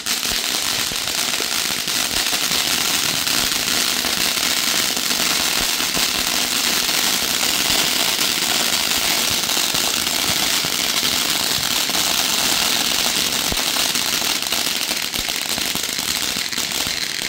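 TNT Ice Breaker ground fountain fireworks spraying crackling sparks: a loud, dense, continuous crackle that eases a little near the end as the fountains burn down.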